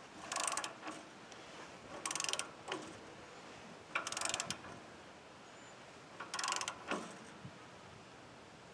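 A ratchet wrench clicking in four short bursts about two seconds apart, as it is worked back and forth on the blade-tension adjuster of a Woodland Mills bandsaw mill. Each burst is the return stroke, tightening the band blade to about 25 pounds of tension.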